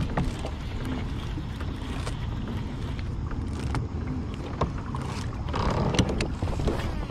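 Steady low rumble of wind and water around a fishing kayak, with a few sharp clicks in the second half from a baitcasting reel as a lure is cast and reeled in.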